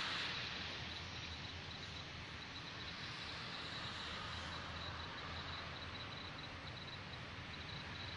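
Steady background noise of distant road traffic, with faint rapid high-pitched insect chirping over it.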